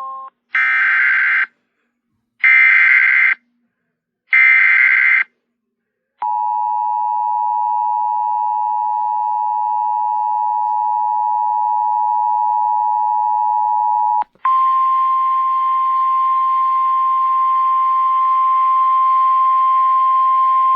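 Emergency Alert System warning signal: three short screeching bursts of SAME header data, about a second each, then the two-tone EAS attention signal held steady for about eight seconds, then switching to the single steady 1050 Hz NOAA Weather Radio alert tone for about six more seconds, heralding a severe thunderstorm warning.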